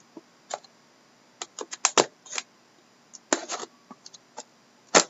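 A sealed 2012-13 Panini Prime hockey card box being worked open by hand: irregular clusters of sharp clicks and crackles from the cardboard and its wrapping, with the box proving hard to open.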